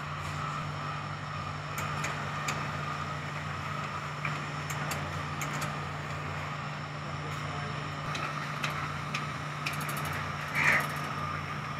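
Poultry-shed egg collection conveyor running: a steady mechanical hum with scattered light clicks, and a brief louder, higher sound a little before the end.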